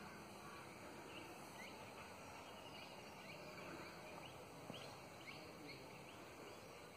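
Quiet outdoor ambience with faint, scattered short chirps from small birds every second or so.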